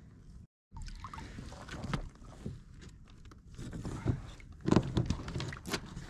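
Irregular knocks and rubbing of hands, fish and gear against a plastic sit-on-top fishing kayak while a trevally is handled and let go over the side, loudest near the end. A brief silent gap half a second in.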